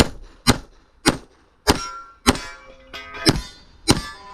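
A string of pistol shots from a .40 S&W Limited-division competition pistol, about one shot every half second, fired at a run of targets. Several shots are followed by steel targets ringing as they are hit.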